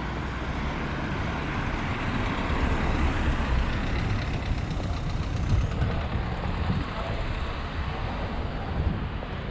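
Busy street traffic, with a heavy vehicle's engine rumbling past, loudest in the middle.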